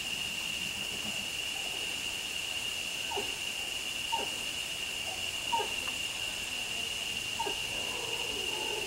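Forest background: a steady high insect drone, with a few short, faint animal calls that fall in pitch, spread a second or more apart.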